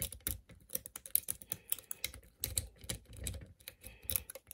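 A city rake lock pick raked quickly in and out of a trailer hitch lock under tension, giving a fast, irregular run of small metallic clicks and scrapes.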